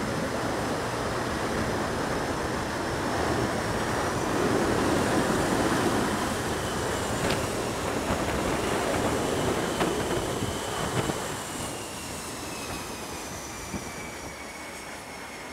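F/A-18 Super Hornet jets passing overhead in formation: a jet engine roar that builds to its loudest about five seconds in and then eases off, with high engine whines falling slowly in pitch.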